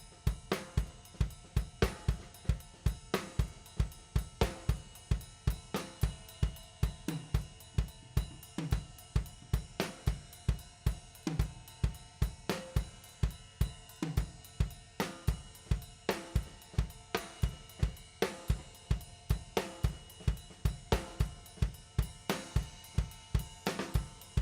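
Music track driven by a drum kit playing a steady, even beat: bass drum, snare, hi-hat and cymbals.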